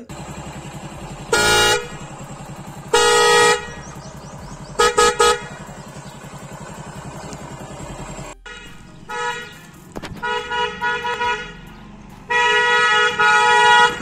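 Pair of Bosch snail horns fitted to a motorcycle, sounded in a series of honks: short blasts in the first half, then broken and longer ones, the last held for about two seconds near the end. A motorcycle engine idles underneath.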